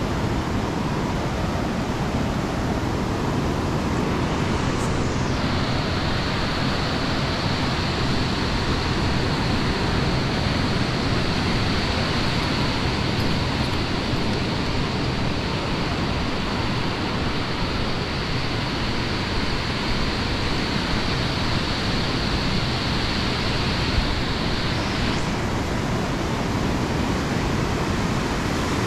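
Steady rushing noise of ocean surf mixed with wind, with no breaks or distinct events; a thin high hiss joins about five seconds in and drops away a few seconds before the end.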